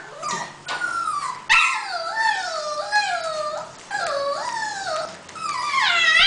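Lhasa Apso puppy whining and whimpering: a string of high, wavering cries that rise and fall, one after another, with a longer cry near the end.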